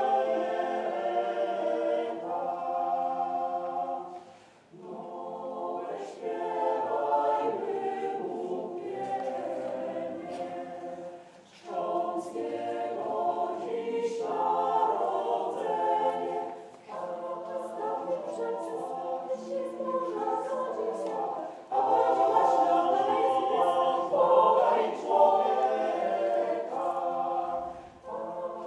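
Mixed choir of women and men singing a Christmas carol a cappella, in long phrases broken by short pauses for breath.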